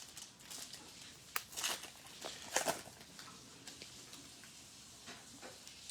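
Faint crinkling and rustling of a trading-card pack wrapper being torn open and the cards handled, a few short crackles in the first half and then quieter handling.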